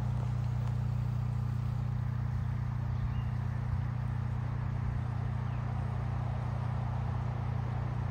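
Steady low mechanical hum of a machine running continuously, with no change in pitch or level.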